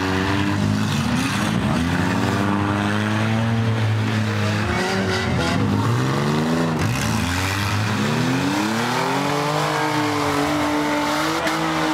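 Several demolition derby cars' engines revving, their pitches rising and falling and overlapping as the cars accelerate and back off.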